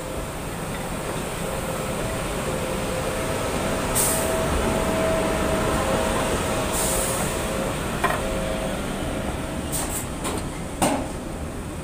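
SBB Ce 6/8 II 'Crocodile' electric locomotive rolling slowly past at close range with a steady running hum. The sound swells as it passes, with a short hiss about two-thirds through and a few sharp clanks near the end.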